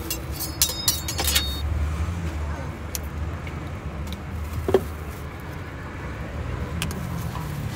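Light metallic clinks and scrapes of a steel spatula on a crepe griddle, mostly in the first second and a half, over a steady low street-traffic rumble, with a single knock near five seconds.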